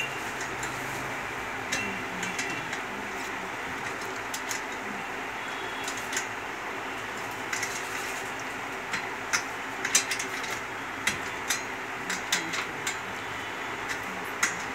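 Scattered light metal clicks and taps from hands and tools working on the nuts, rod and flywheel of an iron sewing-machine treadle stand being assembled, coming more often in the second half, over a steady background hiss.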